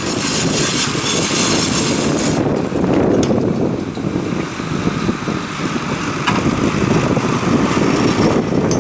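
Tractor engine running under load while ploughing, with wind buffeting the microphone.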